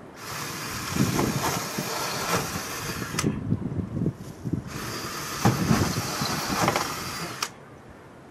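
Power drill running in two bursts of about three seconds each, with a short pause between them.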